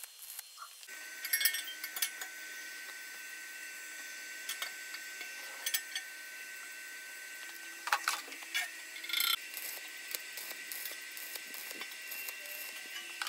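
Stick (arc) welding on steel: the electrode arc gives a steady crackling, frying hiss with sharper pops now and then, over a thin steady high whine.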